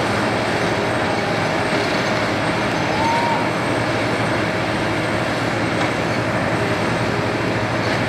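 Diesel engine of a Case skid steer loader running steadily at work.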